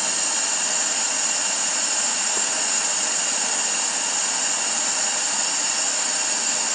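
Draft blower drawing air through a wood gasifier as it is lit: a steady high-pitched whine and hiss.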